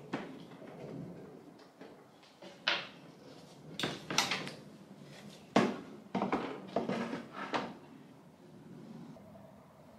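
Hard objects being handled: a series of sharp knocks, clacks and short rattles, the loudest a little past halfway.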